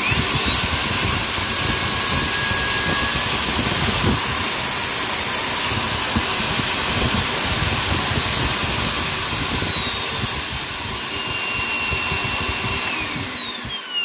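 Miele C3 cylinder vacuum cleaner running on a bodged-in replacement motor of about 1,200 watts. It is switched on and soft-starts, its whine climbing to a high steady pitch. The pitch drops about nine seconds in and levels off, then the motor is switched off near the end and winds down.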